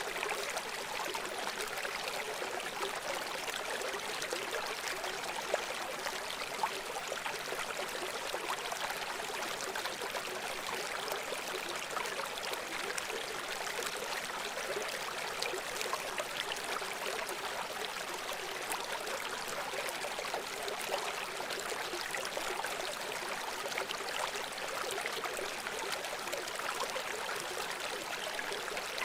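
River water flowing steadily over stones, a continuous rushing and babbling with fine splashes.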